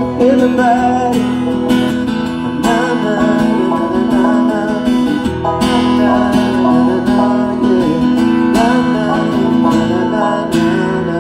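Banjo and acoustic guitar playing a country tune live, over a steady low drone that holds for several seconds at a time and breaks off briefly about five seconds in and again near the end.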